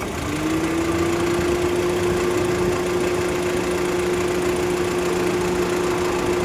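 Honda City engine idling as the air-conditioning compressor kicks in at the start. A hum slides up slightly and settles into a steady whine over the idle: the compressor noise being diagnosed.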